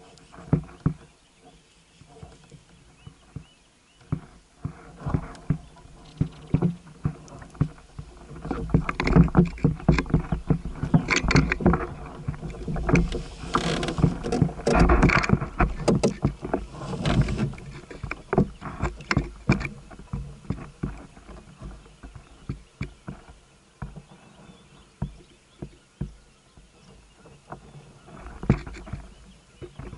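Irregular clicks, knocks and water sounds of a fish being fought on rod and reel from a kayak, busiest and loudest in the middle stretch, then thinning out.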